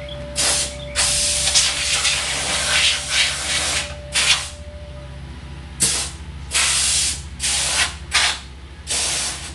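Compressed-air blow gun hissing in abrupt blasts while blowing dirt off a mower: one long blast of about three seconds near the start, then a string of short ones, with a steady low hum beneath.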